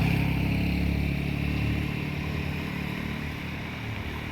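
A motor vehicle's engine running steadily with an even low hum, growing gradually fainter as it draws away.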